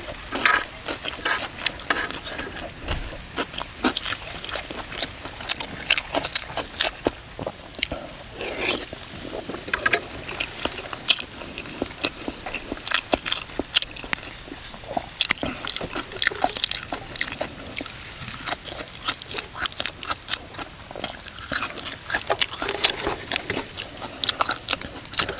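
A person chewing crunchy mouthfuls of pounded cucumber salad close to the microphone, with many small irregular crunches and mouth clicks.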